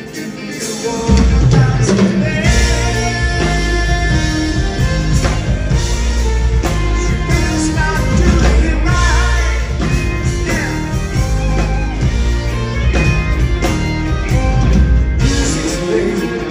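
Live progressive rock band playing loudly, heard from the audience. After a thinner opening second, the full band comes in with heavy bass and drums.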